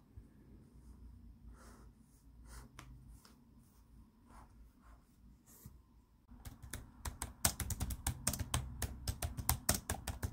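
Soft scattered rustles of paper pages being handled, then, past the middle, fast typing on an HP laptop keyboard: a quick, dense run of key clicks that is the loudest part.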